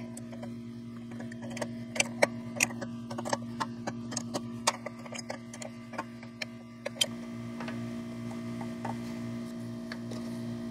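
Adjustable wrench clicking and knocking on a brass fitting on the underside of the pressure washer pump as the fitting is worked loose: a run of irregular sharp metal clicks that stops about seven seconds in, over a steady low hum.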